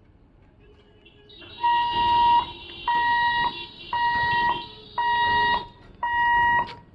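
Level-crossing gate warning alarm sounding an electronic beep about once a second, five beeps starting a little under two seconds in. It warns that the boom barriers are about to close for an approaching train.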